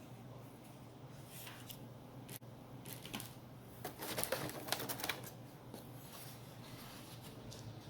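Handling noises: a run of short clicks and rustles, busiest and loudest about four to five seconds in, over a faint steady low hum.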